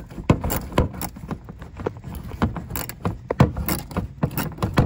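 Hand socket ratchet clicking as it backs out a screw holding the rear diffuser, a quick series of sharp metallic clicks at about four to five a second.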